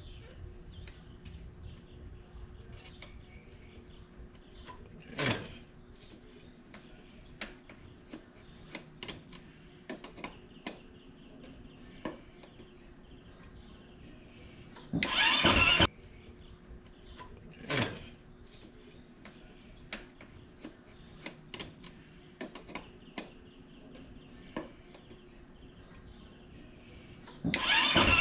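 KTM 500 EXC single-cylinder four-stroke being cranked on its electric starter while it won't start: a burst of about a second halfway through, then cranking again near the end. In between come scattered clicks and handling noises, and two short falling whooshes.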